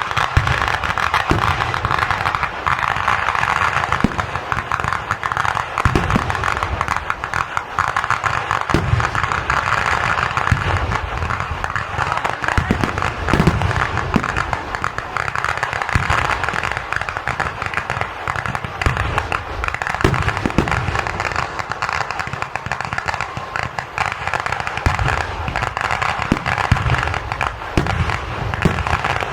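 Thrissur Pooram fireworks barrage: a dense, unbroken rattle of firecrackers going off in rapid succession, with deep booms every few seconds.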